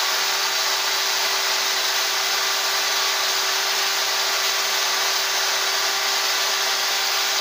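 Electric chainsaw running steadily at full speed: a constant motor whine over the rush of the spinning chain.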